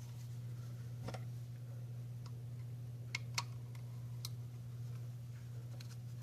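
A handful of small sharp clicks and ticks from a plastic smart-plug housing being pried apart with a tool, the loudest two close together a little past the middle, over a steady low hum.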